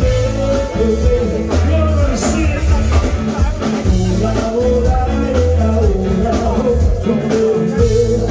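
Upbeat pop song with a sung melody over a steady bass and drum beat.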